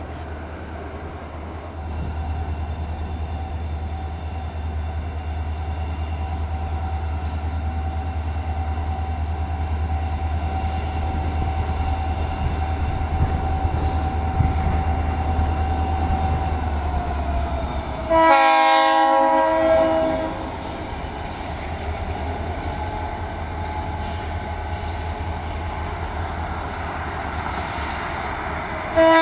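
Diesel freight locomotives running with a steady low engine drone as they haul boxcars. About two-thirds of the way through, the locomotive's multi-chime air horn sounds one blast of about two seconds. The horn sounds again right at the very end.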